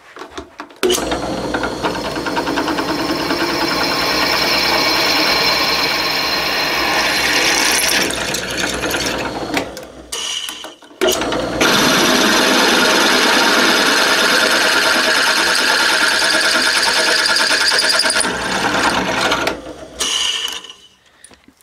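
Machine-driven twist drill cutting a hole through a cast-iron casting, a loud steady grinding chatter as the bit chews into the metal. It cuts in two spells, stopping briefly about halfway through before going on.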